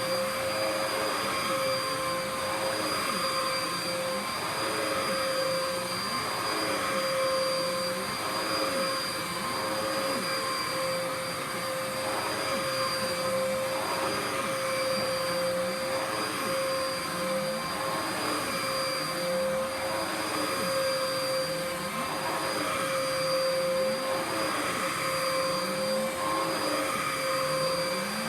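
Dirt Devil PowerMax Pet upright vacuum cleaner running steadily with a high motor whine, its sound rising and falling about once a second as it is pushed back and forth over the floor.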